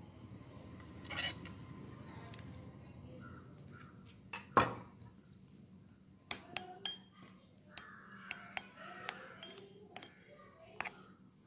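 Steel spoon stirring thick oat-and-banana mash in a glass bowl, clinking against the glass. One sharp clink about halfway through is the loudest, followed by a run of lighter taps.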